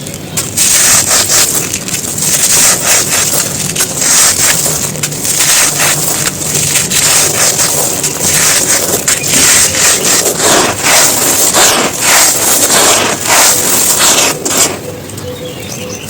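Dry, hard chunks of crumbly floor material being crushed and crumbled, a dense run of close-up crunches and gritty crackles that eases off for about the last second and a half.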